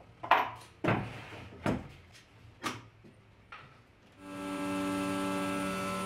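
A few sharp wooden knocks and taps, then about four seconds in a table-mounted router's motor spins up and runs at a steady pitch.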